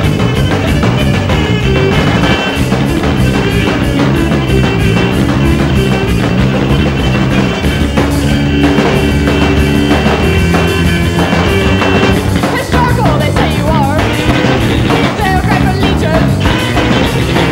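Rock band track playing loudly: drum kit, guitar and bass with a steady beat.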